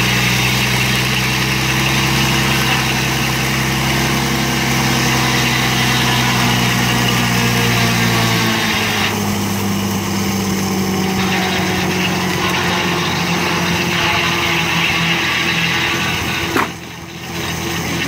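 Engine driving an old circular sawmill, running steadily under the whir of the saw. Its note changes about halfway through, and a sharp knock comes near the end.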